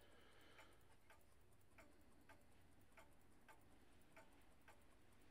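Faint ticking of a clockwork timepiece, about two ticks a second in an uneven tick-tock rhythm.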